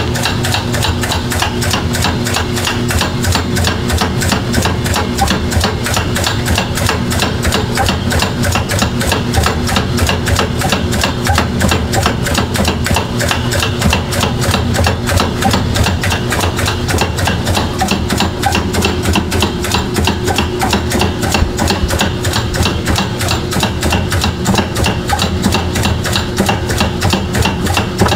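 GE washing machine drive motor running with a loud, rapid, even knocking over a low hum, several knocks a second. The owner first blamed the gearbox but traced the noise to the failing motor, whose internal speed-control actuator had broken hard plastic pieces inside.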